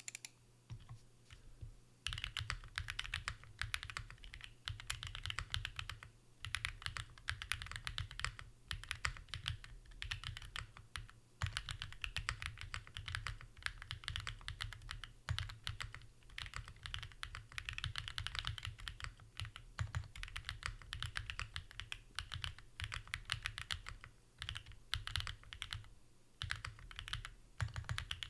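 Continuous typing on a Haven65 gasket-mounted mechanical keyboard with Designer Studio Starry switches and GMK Shoko keycaps, a fast run of key clacks with short pauses between bursts, starting about two seconds in.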